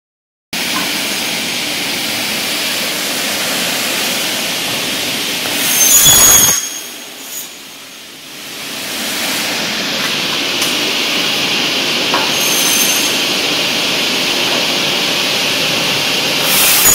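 Double-head aluminium cutting saw running with a steady whirr. About six seconds in, the blades cut through an aluminium profile with a loud, high ringing screech; the sound then drops away and builds back to the steady run. A second cut starts near the end.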